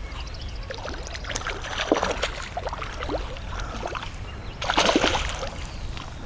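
Water splashing and sloshing in short irregular bursts as a hooked largemouth bass thrashes at the surface while being reeled in, with a louder splash about five seconds in.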